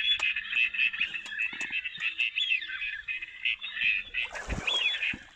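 A dense wetland chorus of many small creatures calling together: short, high chirps and trills overlapping without a break. A soft low thump comes near the end.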